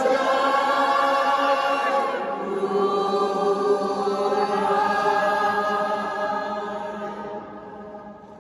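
Group of amateur voices singing a hymn together, holding its last long notes in a stone church with a long, echoing reverberation. The chord changes about two seconds in and is held until it fades out near the end.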